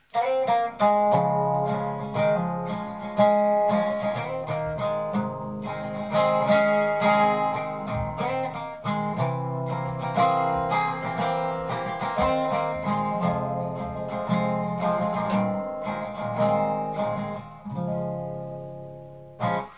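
Capoed acoustic guitar played solo with no voice: picked notes ringing over repeating low chords in a steady rhythm, dying away near the end.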